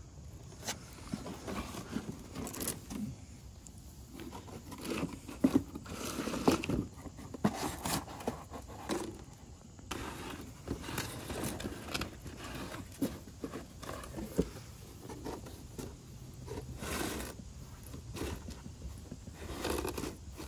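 A dog sniffing rapidly and pushing its nose into folded cardboard boxes, with the cardboard flaps scraping and rustling in short, irregular bursts as it works to get at treats inside.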